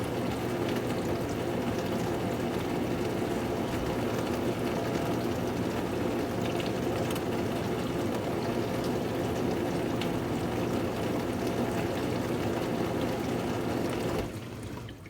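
Amana dishwasher's wash pump running in the spray stage of its diagnostic test cycle, water spraying inside the closed tub as a steady rushing. It cuts off suddenly about a second before the end, leaving a low hum.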